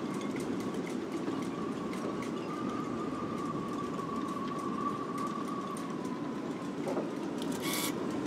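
Steady engine-like rumble with a faint whine that rises slightly and then falls away, and a short bright clink near the end.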